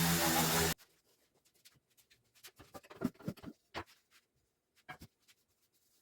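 A small electric power tool's motor running steadily, then cut off abruptly under a second in. After it come scattered light taps, clicks and scrapes of handling, the loudest a little past the middle.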